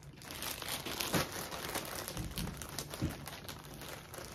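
Thin plastic packaging bag crinkling and rustling as it is handled and pulled open. There are louder crackles about a second in and again around three seconds in.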